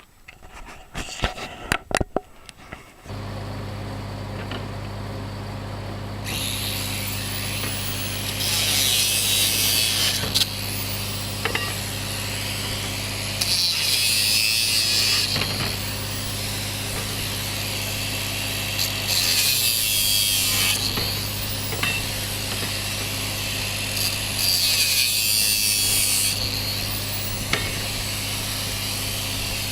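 A few metal clanks, then an angle grinder starts about three seconds in and runs steadily. Four times it bites into scrap copper pipe, each cut a loud grinding stretch of about two seconds, cutting off soldered joints and brass fittings.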